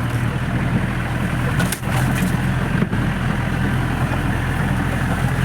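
Off-road jeep's engine running steadily at low speed, with two brief knocks about two and three seconds in.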